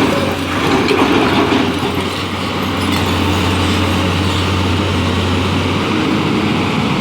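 Tata Hitachi EX 200 LC excavator's diesel engine running steadily under load with a low hum, with busier mechanical rattle in the first two seconds.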